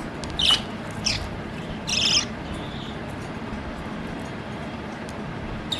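Pet budgerigars chirping: three short, high chirps in the first two and a half seconds and a faint one near the end, over a steady low hiss.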